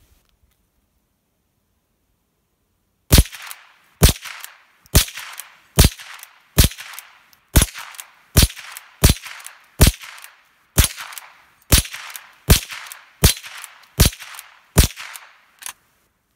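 Henry Frontier H001T .22 lever-action rifle fired in quick succession: about fifteen sharp shots, just under one a second, beginning about three seconds in.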